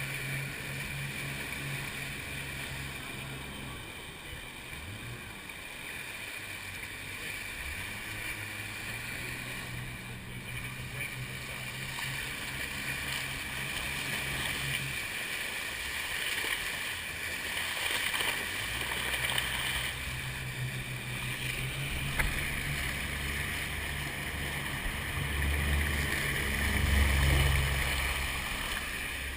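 Washing machine running: a low motor hum over a steady wash of noise, dropping out about halfway through, then coming back and growing louder near the end.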